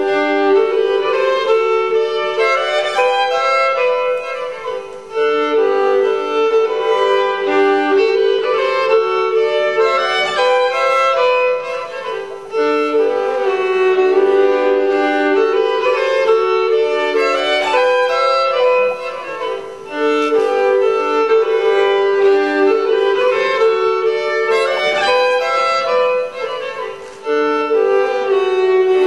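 Two fiddles playing a Norwegian folk bridal march together, with held double-stopped notes sounding under the melody. The playing dips briefly at the end of each phrase, about every seven or eight seconds.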